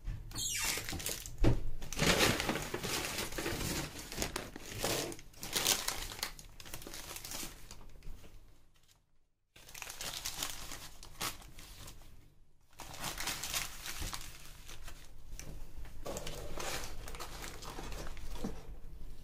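Paper food wrapper crinkling and rustling in irregular bursts as it is handled and pulled back from a pitta sandwich, with a brief break about nine seconds in.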